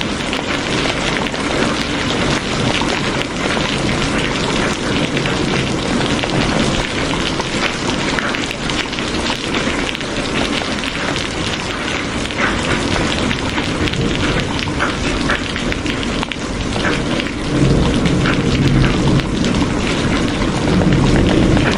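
Steady heavy rain, the individual drops close together and crisp. About three-quarters of the way through, a low rumble of thunder swells in and grows louder.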